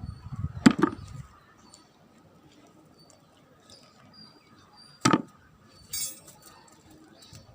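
Hard plastic toys being handled and knocked together: a sharp clack under a second in, another about five seconds in, and a short rattle just after it, with faint clicks between.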